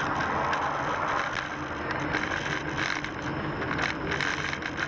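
A moving vehicle: steady road and engine noise with a faint low hum.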